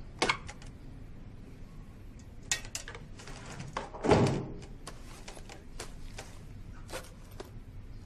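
A canvas shoulder bag being handled: cloth rustling, with scattered soft knocks and clicks and a longer, louder rustle about four seconds in.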